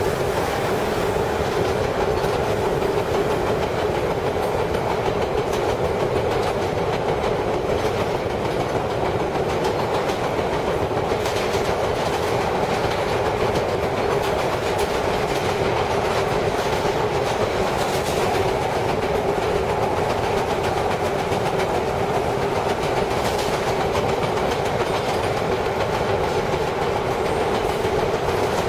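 Vintage R7A New York subway car running through a tunnel: a steady, loud roar of wheels on rail and running gear, with a few faint clacks over rail joints.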